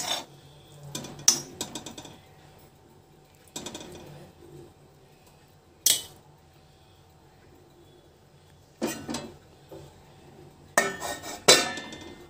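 Metal spoon knocking and scraping against a steel kadai as cooked cluster beans are stirred, in a few separate clanks. Near the end comes a cluster of metallic clanks as a steel plate is set over the kadai as a lid.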